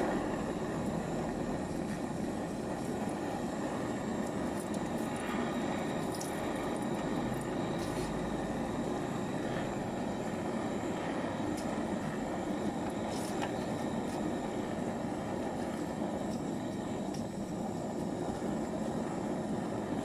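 Handheld gas torch burning with a steady roaring hiss as its flame heats the knife-punctured aluminium panel of a refrigerator's freezer evaporator for aluminium welding, with a few faint clicks.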